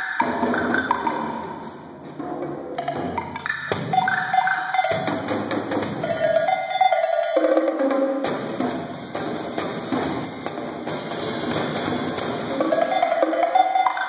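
Solo multi-percussion playing on a drum kit with added small mounted percussion: a fast, busy run of strokes mixing drums with higher pitched strikes. It eases off briefly about two seconds in, then picks up again.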